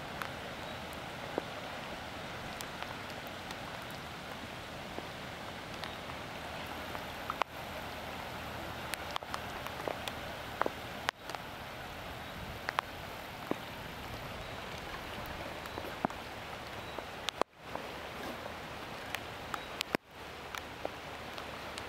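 Steady hiss of heavy rain and floodwater running over a flooded road, with scattered sharp taps of raindrops striking close by. The sound cuts out briefly twice near the end.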